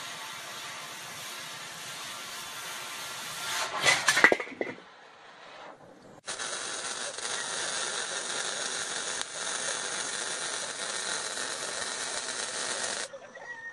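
Angle grinder with a cutting blade running through the steel wall of a water well tank, then loud metal clanks about four seconds in as the cut finishes. After a short lull, arc welding on a steel barrel end gives a steady hiss for about seven seconds and stops shortly before the end.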